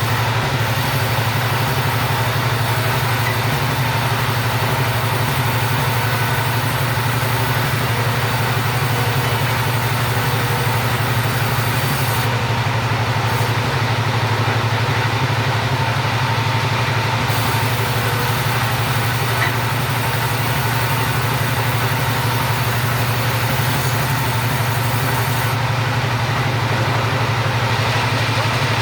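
Two-stroke chainsaw running steadily while cutting timber.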